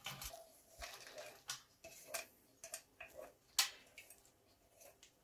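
Soaked wood chips tipped from a metal bowl onto a tray: faint, irregular light clicks and taps as the chips drop and the bowl knocks, the sharpest about three and a half seconds in.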